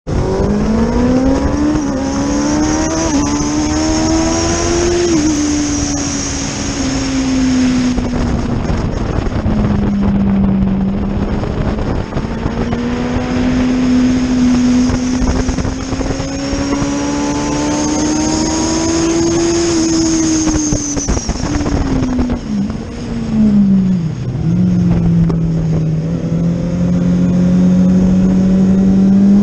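Racing motorcycle engine heard from an onboard camera at speed, its pitch rising and falling with the throttle and gear changes through the corners, dropping sharply twice near the end as it shifts down. Wind rushes steadily over the microphone.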